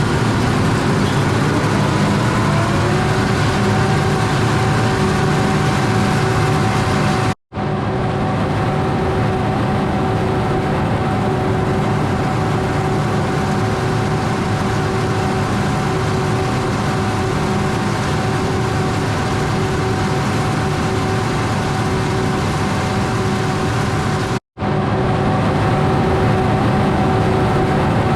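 Large diesel cotton-harvesting machinery running steadily, a whine riding over the engine noise. Near the start a whine rises in pitch over a couple of seconds and then holds steady. The sound cuts out abruptly twice, at edits.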